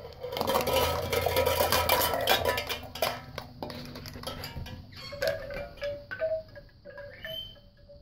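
Hanging plastic cups and tin cans clattering and clinking as a Labrador puppy knocks and mouths them, over ringing tones. The clatter is thick for about three seconds, then thins to scattered knocks.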